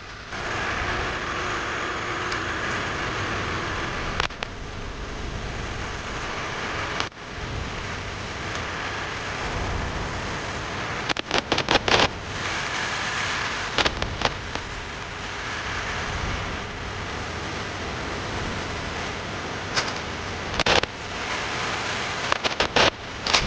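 A steady hissing power tool running, cutting out briefly about seven seconds in, with several quick clusters of sharp clicks and knocks.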